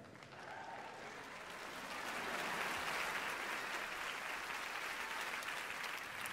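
Theatre audience applauding, swelling over the first couple of seconds and then holding steady.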